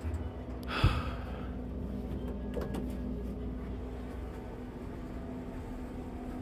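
Quiet elevator cab room tone with a steady low hum. A single sharp click comes about a second in, followed by a short breathy rush.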